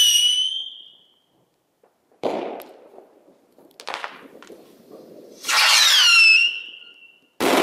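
Small 10 mm whistle-motor rockets launching and bursting. A rocket's whistle falls in pitch and fades out about half a second in. A sharp bang comes a little over two seconds in, then a crackling pop around four seconds. A second rocket screams up with a falling whistle from about five and a half to seven seconds, and another sharp bang follows just before the end.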